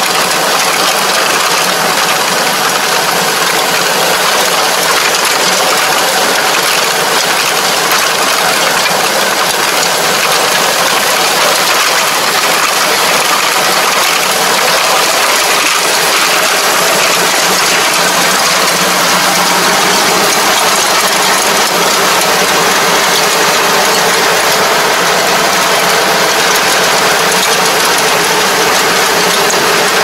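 Farm machinery running at working speed: a steady engine with continuous mechanical and gear clatter, loud and unchanging throughout.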